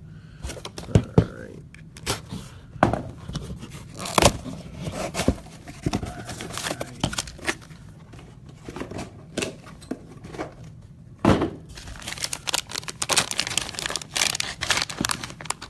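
Trading card packaging being torn open and crinkled, with scattered sharp clicks and knocks from handling the box and cards; the handling is busiest in the second half.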